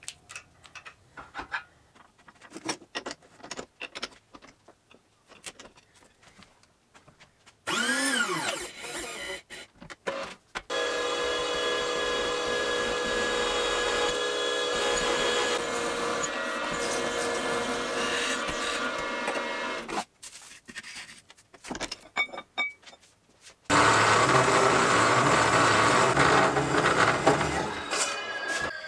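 Light clicks and knocks of steel parts being handled, then a brief whine that rises and falls, and a drill press drilling steadily through a round steel bar for about ten seconds. After a pause with a few clicks, a metal-cutting chop saw cuts through steel tube for about five seconds.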